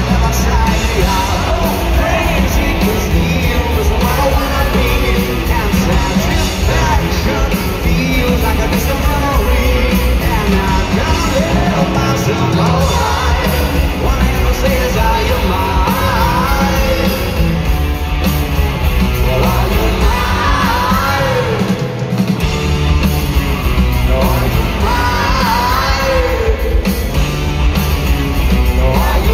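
Live rock band playing a heavy electric-guitar song with drums, bass and a male lead vocal, loud and echoing as heard from within an arena crowd. The bass drops out briefly about two-thirds of the way through.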